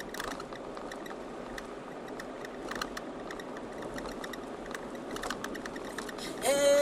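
Steady road and engine noise of a car heard from inside the cabin while driving, with a few scattered faint clicks. Near the end a woman starts singing loudly.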